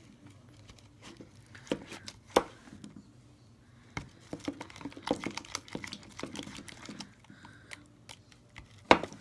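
A spoon stirring a glue-and-lotion slime mix in a container as borax activator is worked in: irregular clicks and scrapes of the spoon against the container with sticky crackling sounds, the sharpest click near the end.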